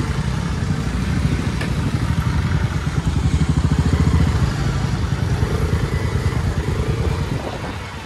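Motorcycle engine running as it is ridden. It grows louder about halfway through and eases off near the end.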